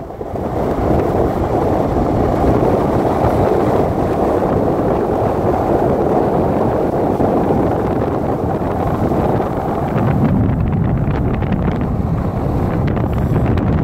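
Steady rush of wind buffeting the microphone through a moving car's open window, over the car's road noise.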